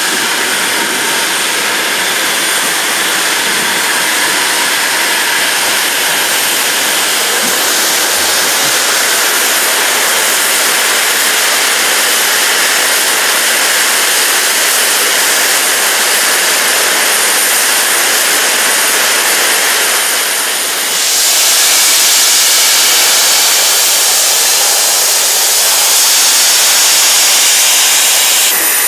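Loud, steady hiss of steam escaping from standing steam locomotives, growing louder and brighter a little after twenty seconds in.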